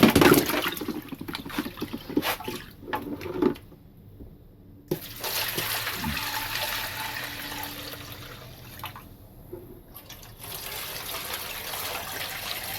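Liquid pouring and splashing in a steady rush, after a few sharp clicks and knocks from handled parts in the first few seconds.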